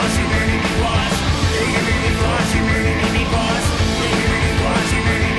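Loud punk-style rock music with a driving beat, distorted guitars and singing.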